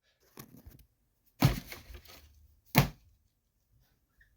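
A few knocks and thumps in a small room: a faint one about half a second in, a loud one about a second and a half in, and a sharp loud one just before three seconds in.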